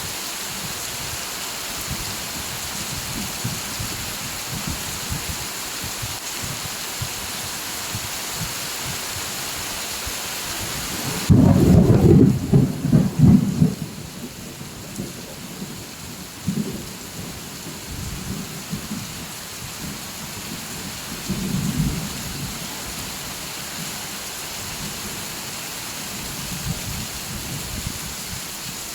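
Steady rain hiss with a loud crack and rumble of thunder about eleven seconds in, lasting a few seconds, followed by two fainter rumbles.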